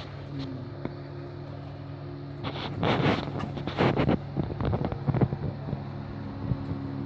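Steady hum of a speedboat's engine running at speed, with short gusts of wind buffeting the microphone a few times in the middle.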